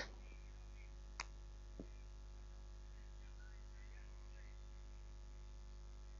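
Steady electrical mains hum with a ladder of overtones on an old talk recording, with two small clicks a little over a second in and again just under two seconds in.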